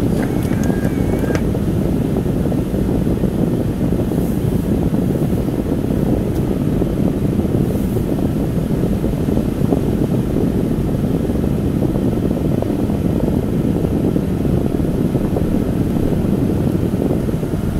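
Car driving through floodwater, heard from inside the cabin: a steady low rumble of engine and tyres in the water.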